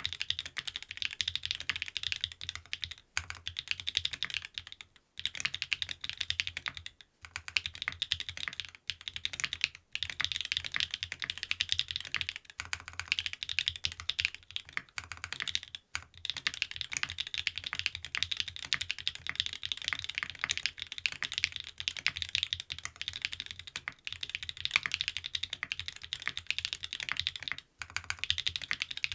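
Fast, continuous typing on a custom TKD Cycle 7 mechanical keyboard with stock SW x Gateron Deepping switches, an aluminium plate, PBTFans keycaps and no sound damping, the keystrokes coming in dense runs broken by a few brief pauses.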